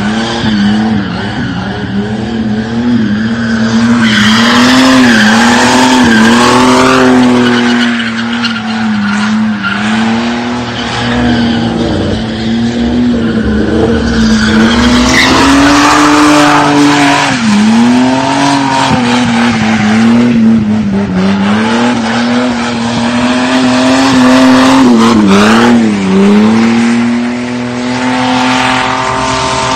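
Car doing a burnout: the engine is held at high revs, its pitch dipping and climbing back every few seconds as the throttle is worked, over the steady screech and hiss of spinning tyres.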